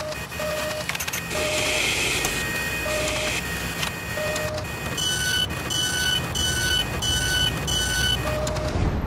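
Mechanical sound effects for an animated end card: a steady machine whirr with clicks and clanks and a few short low bleeps. About halfway through, a run of higher electronic beeps comes in at about two a second.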